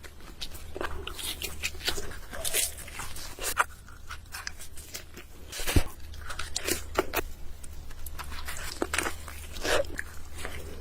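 Close-miked eating of pizza: irregular crunching bites into the crust and wet chewing and smacking, with one sharp crunch about halfway through, over a steady low hum.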